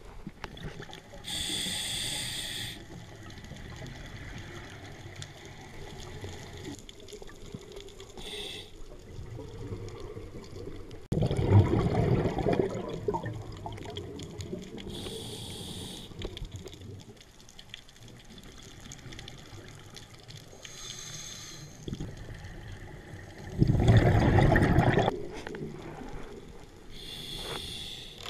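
Scuba diver breathing through a regulator underwater: short hissing inhalations through the demand valve, and two louder rushes of exhaled bubbles, one near the middle and one near the end.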